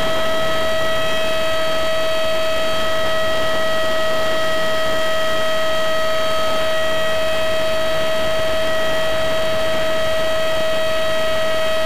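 An RC F-15 jet's electric ducted fan running at a steady speed, heard through the plane's onboard camera: a constant high whine over a rushing hiss that does not change in pitch.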